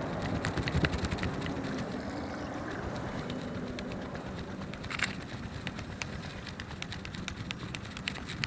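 Footsteps of a person walking on a paved path: a steady run of light clicks over a low rumbling background.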